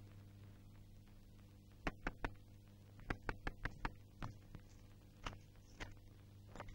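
Quick sharp knocking on a door, over a steady low hum. Three raps come about two seconds in, a faster run of five follows a second later, then a few scattered knocks near the end.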